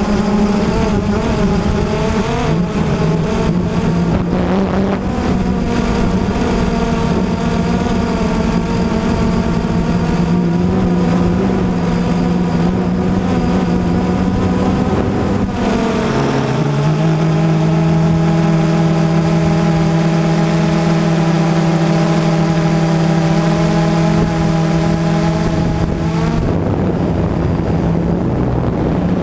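Blade 350 QX3 quadcopter's electric motors and propellers whirring, heard from on board. The steady buzz drops to a lower, steadier pitch a little past halfway as the motor speeds change.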